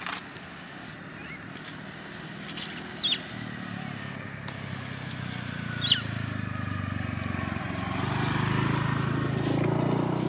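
A motor vehicle's engine approaching along the road, its low hum growing steadily louder through the second half. Two short sharp high squeaks cut in, about three and six seconds in.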